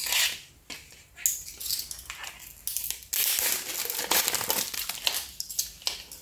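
Plastic packaging crinkling and rustling in irregular bursts as a concealer is unwrapped by hand.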